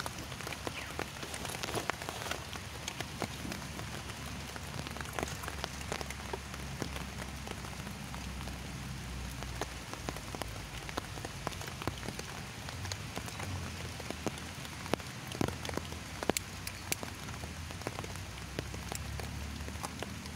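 Steady drizzle falling on wet ground and foliage, with many individual drops ticking sharply throughout, over a low steady rumble.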